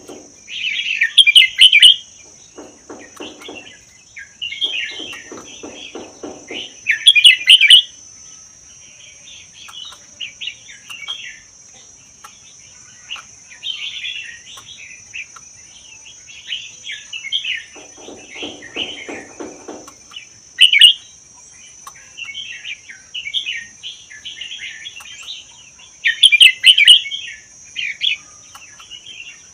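Red-whiskered bulbul singing, bright warbled phrases given again and again in short bursts. A steady high hiss runs underneath, and a lower rapid pulsing comes in three times.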